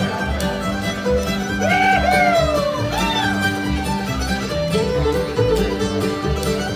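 Old-time string band playing a fiddle tune: the fiddle leads, sliding between notes, over a steady rhythmic backing.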